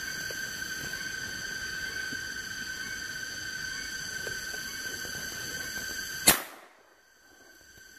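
Insects droning steadily, then a single sharp shot about six seconds in, a hunter firing at a squirrel. The insect drone drops away right after the shot and slowly returns.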